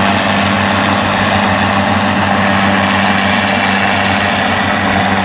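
Kubota DC70 combine harvester running steadily under load as it cuts rice, its diesel engine droning loudly through a modified exhaust together with the whir of the cutting and threshing gear.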